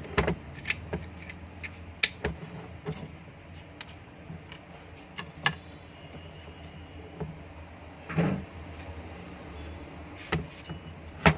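Scattered metallic clicks and knocks of tools and small hardware being handled as the remaining through-bolts are fitted into an exhaust fan motor's housing, with a louder knock about eight seconds in and another near the end.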